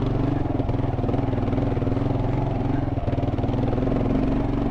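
Kawasaki KLR650's single-cylinder four-stroke engine running steadily under load in a low gear on a steep hill climb.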